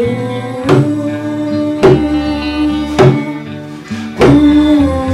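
Small hand drum struck by hand about once a second, four strokes, over an accompaniment of held notes and a steady bass line: the instrumental lead-in to a song.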